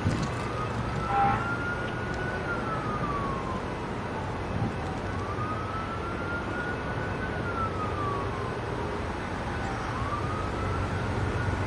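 Emergency vehicle siren in a slow wail, the pitch rising, holding and falling about every five seconds, over a steady low rumble.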